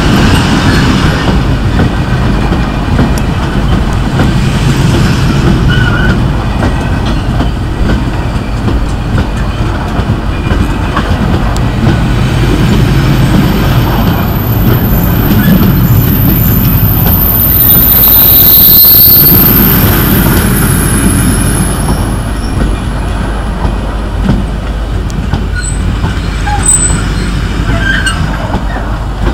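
Freight train's open box wagons rolling past close by, with a continuous wheel rumble and clatter. A high-pitched wheel squeal rises past the middle and fades.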